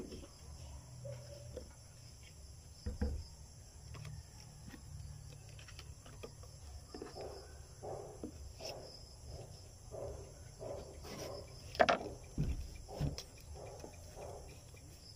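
Steady high drone of insects, with a few soft knocks and rustles of a plastic bottle and paper sticker label being handled; the loudest knock comes about twelve seconds in.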